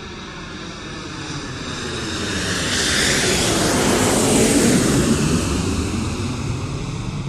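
Jet aircraft flying past overhead. It grows louder to a peak a little past the middle, with a sweeping whoosh whose pitch bands slide as it passes, then fades as it moves away.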